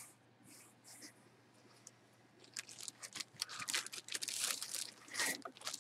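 Handling noise from opening a jersey box: cardboard shifting and a jersey in its plastic bag being pulled out. The plastic crinkles and rustles, faint and sparse at first, then busy from about halfway through.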